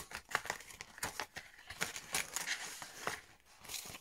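Clear plastic packaging crinkling and rustling in quick, irregular crackles as it is handled and opened to take out thin metal cutting dies.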